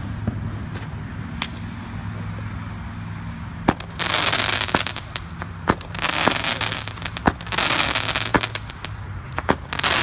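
Winda "Kaleidoscope" consumer firework cake firing: a sharp shot a little under four seconds in, then shots every second or two, each followed by a burst of crackling.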